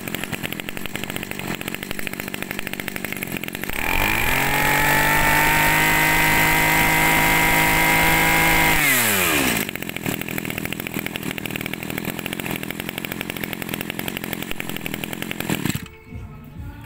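Robin brush cutter's small petrol engine idling, then revved to full throttle about four seconds in. It holds a high steady pitch for about five seconds, then falls back to idle, firing crisply and running strongly. Near the end the engine cuts out.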